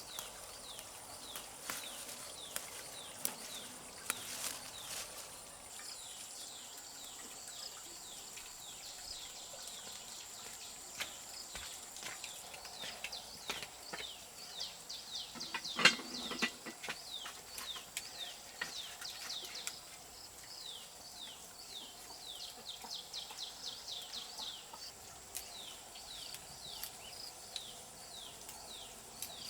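Outdoor rural ambience: a steady high-pitched insect drone under many quick, falling bird chirps, with one sharp knock about halfway through.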